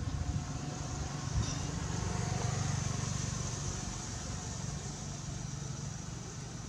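A motor vehicle engine running steadily in the background, a low hum that swells about two to three seconds in and then eases off.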